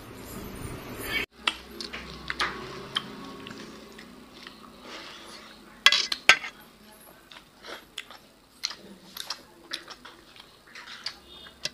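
Eating by hand at a table: scattered clicks and clinks of fingers and food on steel and ceramic plates, with chewing. Two sharp clinks come close together about six seconds in, and a short noisy stretch cuts off abruptly about a second in.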